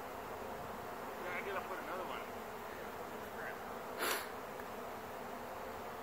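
A honeybee swarm in flight: the steady buzzing hum of thousands of bees in the air as the colony swarms. A brief louder noise cuts across it about four seconds in.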